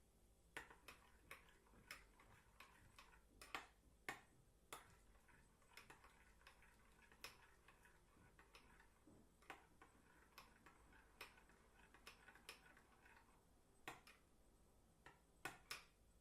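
A spoon clinking against a glass of warm milk as it stirs to dissolve butter: faint, sharp clinks at an irregular pace, about one or two a second.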